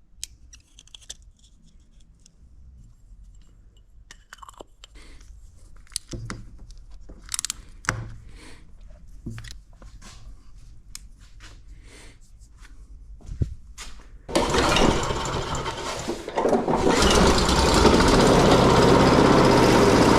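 Scattered clicks and knocks of handling, then about fourteen seconds in a Honda lawn mower's small engine starts and runs, settling into a louder steady run a couple of seconds later. It runs again after its dirty carburetor has been cleaned.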